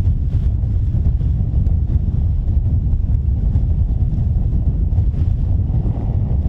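Steady wind buffeting the microphone aboard a moving ferry: a loud, low, fluttering rumble with no clear engine tone or single events.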